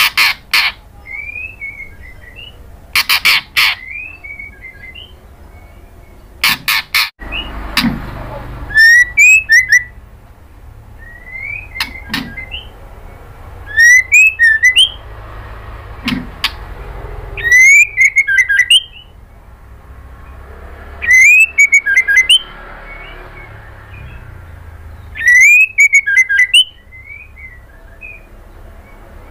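Female white-rumped shama (murai batu) calling: three loud, short harsh bursts in the first seven seconds, then a phrase repeated every three to four seconds, a rising whistle followed by a quick run of high, sharp notes.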